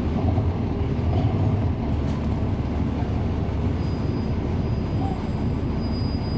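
NABI 40-SFW transit bus running steadily: its Cummins ISL9 diesel engine and ZF Ecolife six-speed automatic drivetrain give a low, even rumble, with a faint high whine coming in about four seconds in.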